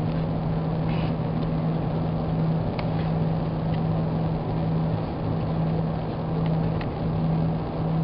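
Airbus A340-300 cabin noise while taxiing: a steady jet-engine and airflow rush with a constant low hum, heard from inside the cabin, with a few faint clicks.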